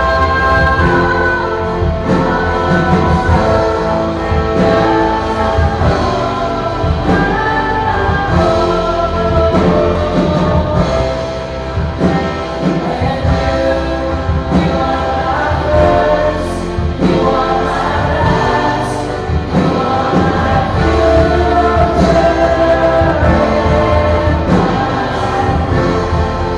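Live contemporary Christian worship band playing and singing, with strong bass, heard from among the audience in a large hall.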